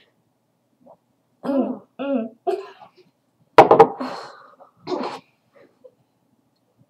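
A girl coughing and clearing her throat while drinking eggnog: two short throaty vocal sounds, then a sharp cough about halfway through and a smaller one a second later.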